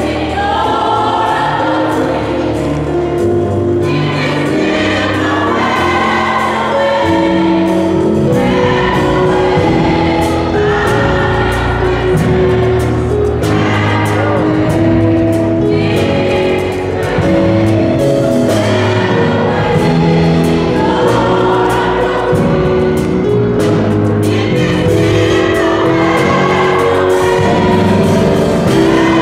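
Gospel choir singing a worship song over a band, with held bass notes and a steady drum beat.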